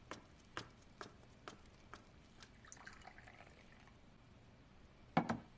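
Footsteps on a hard floor, about two a second, then hot water poured from a porcelain teapot with a soft trickle. Two loud knocks close together near the end.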